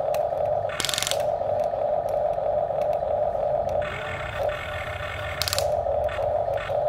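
Huina RC toy excavator's electric motors and plastic gears running with a steady whine as the boom and arm move. Two short bursts of gear ratcheting come about a second in and near the end.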